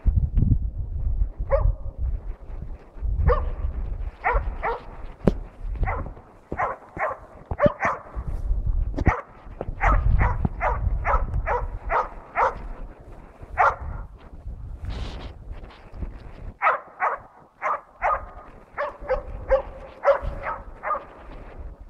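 Jämthund (Swedish elkhound) barking in long, steady runs of about three barks a second, with a short pause about two-thirds of the way in. This is the bay bark of a moose dog holding a moose at bay.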